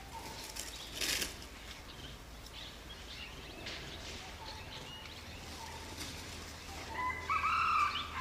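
Forest birds chirping faintly, with a brief rustling burst about a second in and a louder, clearer bird call near the end.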